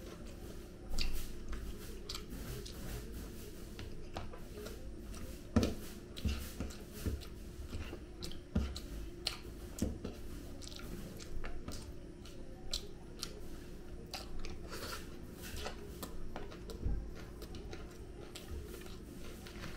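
A person chewing and eating by hand close to the microphone: irregular wet mouth clicks and smacks, with the loudest click about five and a half seconds in, over a steady low hum.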